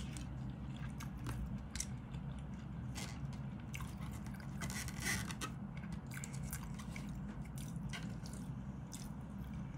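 A person eating: chewing and mouth sounds, with a plastic fork and spoon scraping and clicking against a plastic food container in scattered short clicks. A steady low hum runs underneath.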